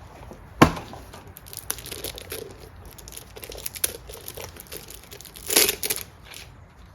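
Crinkling and tearing of packaging as a new oil filter is unwrapped and handled, with scattered small clicks, one sharp click about half a second in, and a louder rustle a little after five seconds.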